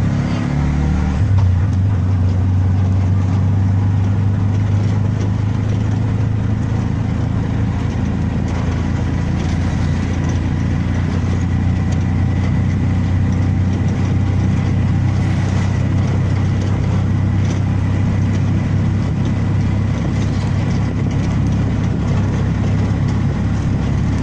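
A vehicle engine running steadily, a low hum with road noise throughout.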